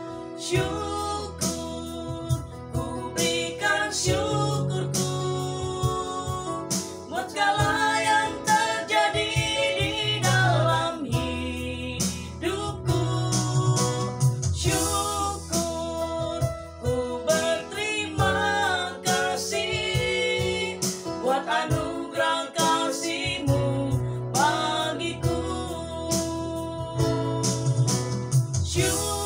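A woman sings an Indonesian worship song to live Yamaha electronic keyboard accompaniment.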